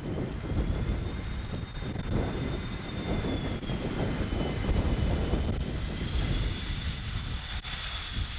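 Jet airliner's engines on the landing approach: a heavy rumble under a high turbine whine that rises, dips and rises again.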